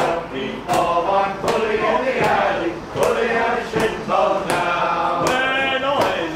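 Men singing a song over a steady percussive beat, about four beats every three seconds.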